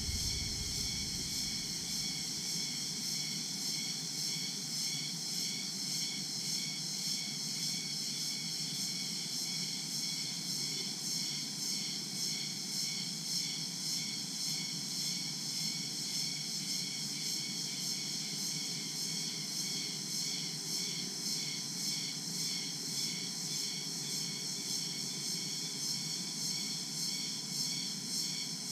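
Daytime tropical jungle insect chorus: crickets and other insects make a steady, layered, pulsing high-pitched drone. A low, steady rumble runs underneath.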